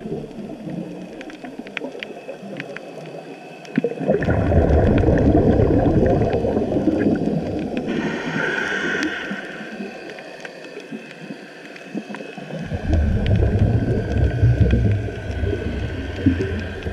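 A scuba diver breathing through a regulator underwater. Exhaled bubbles rush out in two long bursts, about four and about thirteen seconds in, with a shorter hiss of inhaling through the regulator between them. Faint scattered clicks run underneath.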